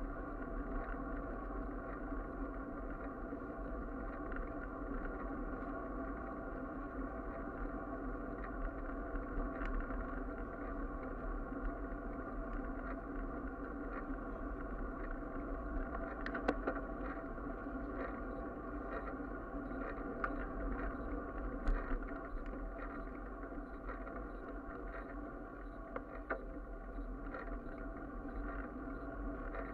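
Steady rumble and hum of a bicycle rolling along asphalt, heard through a handlebar-mounted camera, with wind buffeting low down. Occasional small clicks and rattles come from road bumps.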